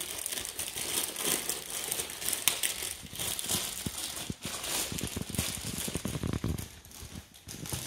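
Clear plastic packaging bag crinkling and rustling as headphones are handled and pulled out of it, with light clicks and knocks of the gear against the cardboard box and tray.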